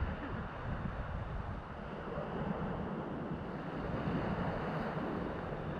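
Wind buffeting the microphone in uneven low rumbles, over a steady rushing noise of the sea.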